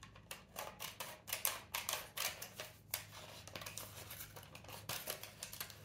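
Small scissors cutting a square of parchment paper: a quick series of snips, densest in the first three seconds and lighter after.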